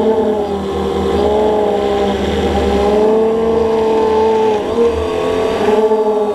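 Quadcopter drone's motors and propellers running in flight: a steady hum of several tones that rise and fall together as the drone turns and tilts, dipping briefly about three-quarters of the way through.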